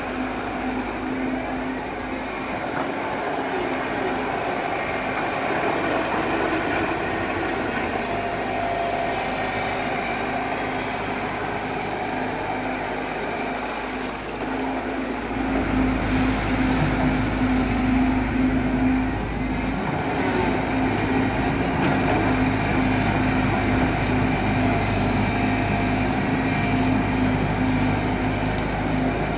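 JCB crawler excavator's diesel engine running steadily with a constant hum. About halfway through it gets louder with a deeper rumble, as the engine comes under heavier load.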